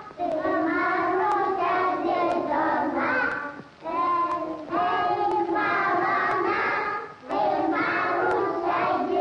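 Young children singing a song together, in three phrases with short breaks about four and seven seconds in.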